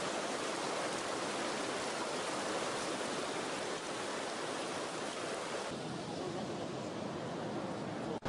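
Steady rush of fast-flowing water, like a river swollen by heavy rain. The sound turns duller about six seconds in.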